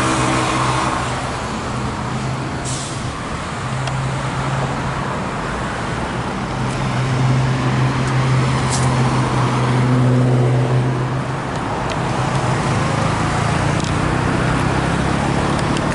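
Road traffic: a vehicle engine running steadily with the noise of passing cars, louder in the middle.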